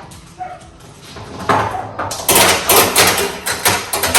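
Steel pinballs dropped into a pinball machine, clacking and knocking against each other and the metal ball trough in a quick run of sharp ringing clicks from about a second and a half in.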